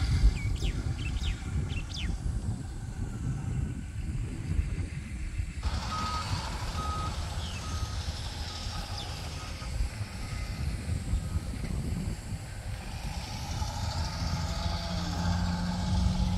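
A construction vehicle's reversing alarm beeps, a string of short, same-pitched beeps starting about six seconds in and fading after a few seconds, over a steady low rumble.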